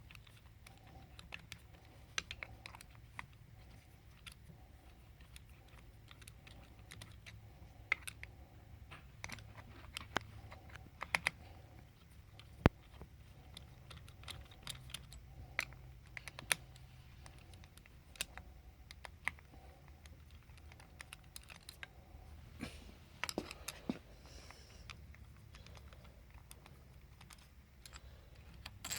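Irregular small clicks and taps of a hand tool and metal screws as the bolts holding a high-pressure misting pump's head are undone one by one.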